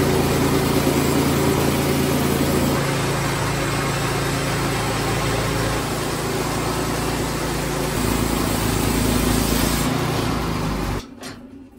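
Woodland Mills HM122 portable bandsaw mill sawing an inch-thick board off a black spruce cant: its gas engine runs steadily under cutting load, the band blade working through the wood. The engine note shifts slightly about three and eight seconds in, and the sound cuts off abruptly near the end.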